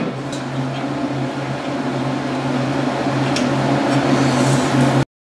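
Steady low machine hum that grows a little louder, with a faint click about three and a half seconds in; it cuts off abruptly near the end.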